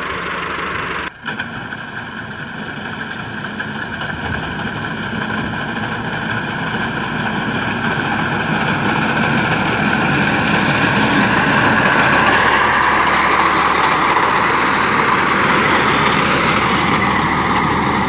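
Massey Ferguson 385 tractor's four-cylinder diesel engine running steadily while driving a front-mounted wheat reaper through standing wheat. The sound drops out briefly about a second in, then grows louder as the tractor comes close.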